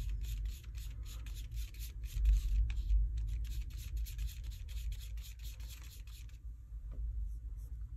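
Palette knife scraping over a paper plate as it mixes white acrylic paint into blue: a fast run of scratchy strokes, about four or five a second, that stops about six seconds in.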